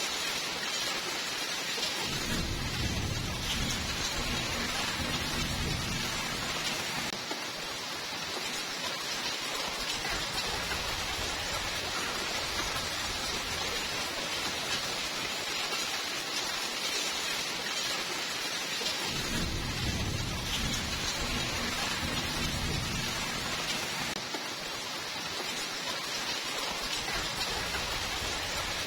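Steady heavy rainfall hissing evenly, with two long low rolls of thunder, one starting about two seconds in and another a little past the middle, each lasting several seconds.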